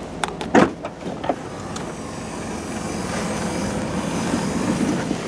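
Minivan power sliding door opening: a latch clunk at the handle about half a second in, then the door's motor running steadily as the door slides open.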